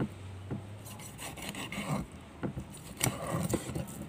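Kitchen knife scraping a whole tilapia on a wooden chopping board, scaling and cleaning it: two spells of rasping strokes, with a few short knocks of the knife and fish against the wood.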